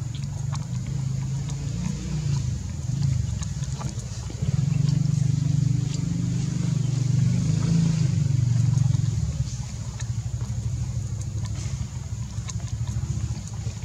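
A low engine rumble, louder from about four and a half seconds in until about nine and a half seconds, with a faint steady high hiss and a few soft ticks over it.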